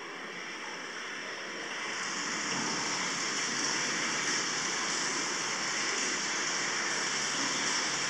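Hot spring water falling steadily into the bath, an even rushing splash that grows louder over the first couple of seconds and then holds steady.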